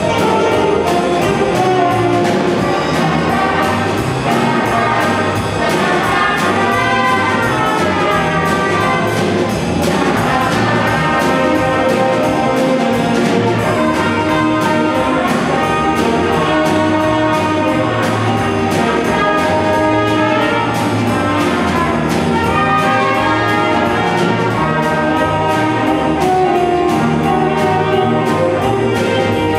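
Intermediate-level student jazz big band playing: saxophones, trumpets and trombones over a rhythm section with a steady drum beat.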